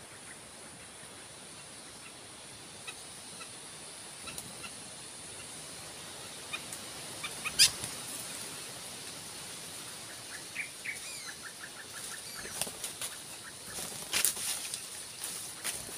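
A wild dove flapping its wings at a perch trap: one sharp flutter about halfway, then repeated bursts of flapping in the last few seconds as it is caught. A steady high insect drone runs underneath.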